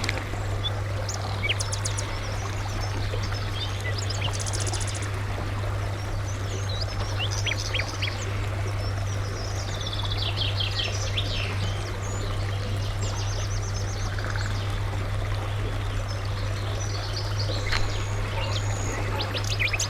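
Several wild birds calling and singing in short chirps and trills, over a steady low hum and a constant hiss.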